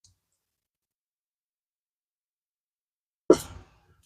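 Near silence, then a single short cough about three seconds in.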